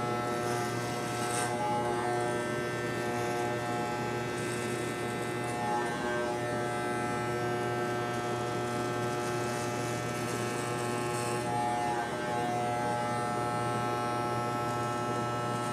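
Corded Wahl Envy hair clippers buzzing steadily as they shave the side of a head, a low, even electric buzz.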